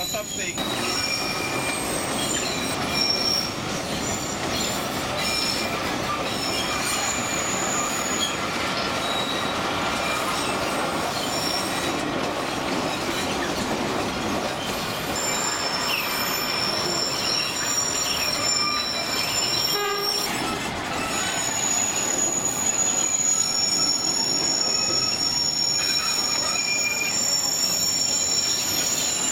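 Narrow-gauge train rolling slowly through curves: a steady rumble of wheels on rail with high-pitched wheel squeal that comes and goes. The squeal becomes longer and more continuous in the second half.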